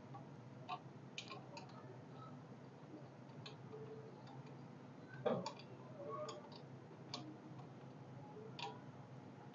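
Faint, scattered small metallic clicks and taps as a bolt and washers are fitted by hand to a motorcycle mud-flap mounting, with a slightly louder knock about five seconds in.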